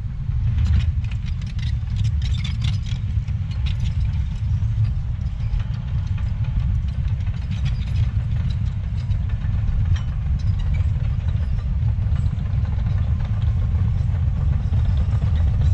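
Heavy earthmoving machine's diesel engine running steadily with a deep rumble, with scattered light clanks and rattles over it.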